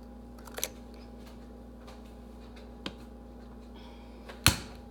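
A couple of light clicks, then one sharp knock near the end: a raw egg being cracked against the edge of a bowl.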